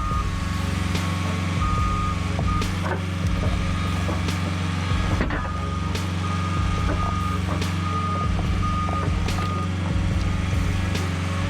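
Heavy diesel machine running steadily while its backup alarm sounds repeated short beeps, with occasional knocks from the work.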